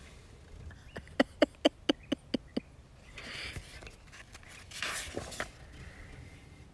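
A quick series of about seven short, sharp animal calls, about five a second, about a second in. Later comes a soft rustle of a paper book page being turned.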